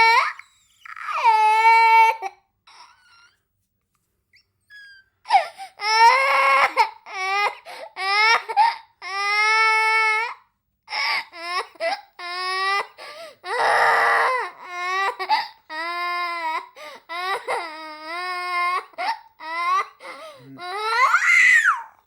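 A young child crying and sobbing in a string of high-pitched wails broken by catching breaths, with a pause of a few seconds early on and a rising wail near the end.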